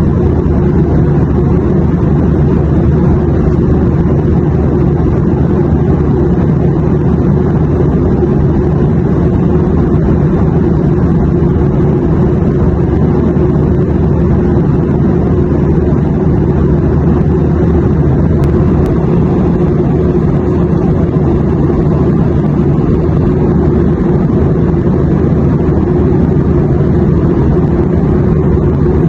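Steady low drone of an airplane in flight, heard from inside the cabin, with an even hiss above it and no change.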